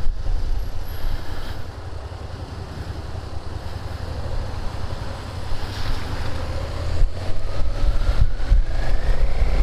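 Wind buffeting a helmet-mounted microphone on a moving Suzuki SFV650 Gladius, with the bike's V-twin engine underneath. The rumble eases for a couple of seconds, then grows again as the engine's note rises steadily in the last few seconds while the bike accelerates.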